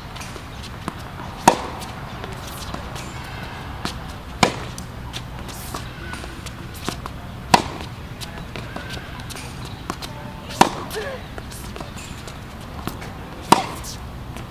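Tennis racket hitting the ball in groundstrokes: five sharp hits, about three seconds apart, with fainter ticks between them.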